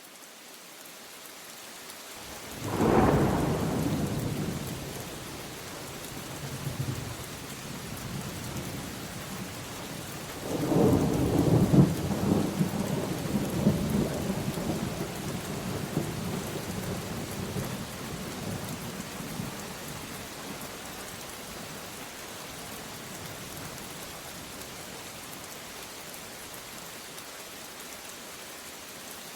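Steady rain falling, with two rolls of thunder: a loud clap about three seconds in that rumbles away over a few seconds, and a second, longer peal starting about ten seconds in that rolls on for several seconds before fading back into the rain.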